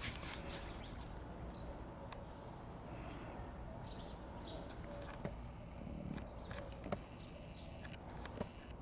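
Quiet outdoor background hum with a few faint, short high chirps and a couple of soft clicks.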